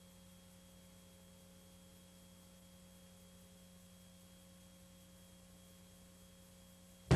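Faint steady hum and hiss with a few thin constant tones, the background noise of a VHS tape playing before its programme starts. Loud music cuts in abruptly at the very end.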